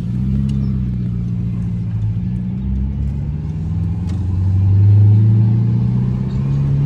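Holden VZ Commodore SV8's 5.7-litre LS1 V8 running, its note climbing as the revs rise about four seconds in and again near the end.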